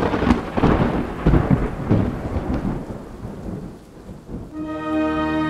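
Thunder rumbling with rain, several crashes in the first two seconds that slowly die away. Near the end a sustained chord of music fades in.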